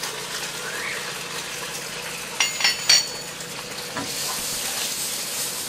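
Steel wheel nuts and lug wrench clinking as a car wheel's nuts are taken off by hand: a few sharp metal clinks that ring briefly a little past halfway, and a single knock about a second later, over a steady hiss.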